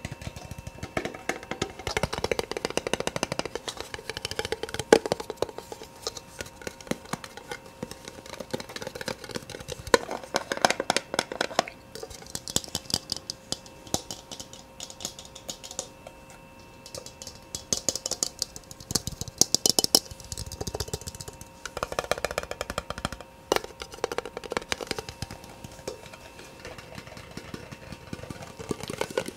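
Soft, very fast tapping: rapid runs of clicks that come in clusters and change in tone from one run to the next.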